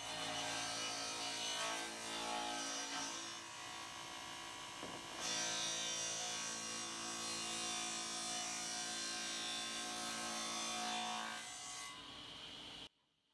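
Table saw running with a steady motor hum while a recycled wood board is fed across the blade, cutting a rebate along its edge. Near the end the sound falls away and then cuts off suddenly.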